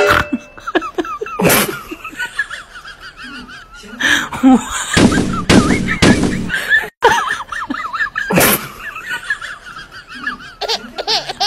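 Laughter, in wavering high-pitched peals, broken by a few loud noisy bursts about a second and a half, five and eight and a half seconds in.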